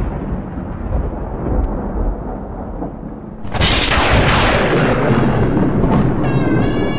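Thunder rumbling, with a loud thunderclap cracking about three and a half seconds in and rolling on. Near the end a held pitched tone comes in over the rumble.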